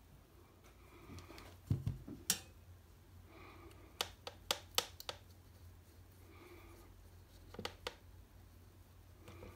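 Sharp clicks and light knocks in three short clusters: around two seconds in, between four and five seconds in, and near eight seconds. A faint low hum lies under them.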